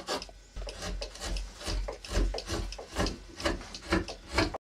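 Hand carving tool cutting into lime wood in short scraping strokes, about two or three a second, cut off suddenly near the end.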